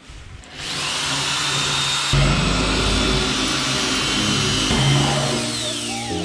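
Power drill boring into a concrete block wall, starting about half a second in and running steadily with a high motor whine. The whine falls in pitch near the end as the drill winds down.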